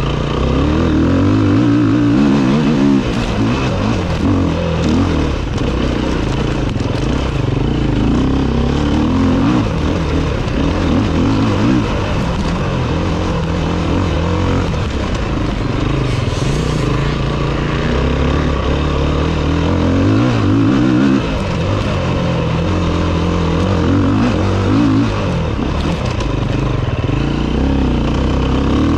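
Enduro dirt bike engine heard from on board under hard riding, its note climbing and dropping in steps as the rider changes gear and rolls on and off the throttle.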